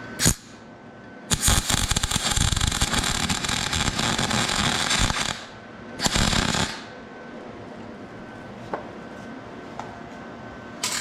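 Electric arc welder welding a nut onto a broken exhaust bolt stub in an aluminium LS cylinder head, filling the nut from the inside out. The weld heats the bolt so it will release from the threads. There is a brief arc strike just after the start, a steady run of welding for about four seconds, then a second short burst of under a second.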